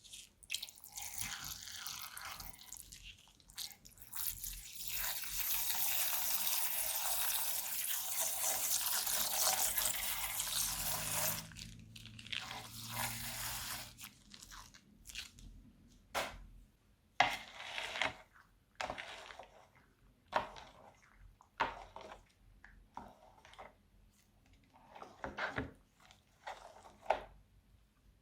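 Crunchy slime crackling and squelching as it is squeezed and worked by hand. A dense crackle runs for about the first ten seconds, then gives way to a string of separate crunchy squeezes.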